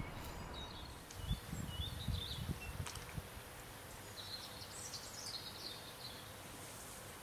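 Small birds chirping and twittering in short phrases over a quiet outdoor background, with a few low bumps in the first couple of seconds.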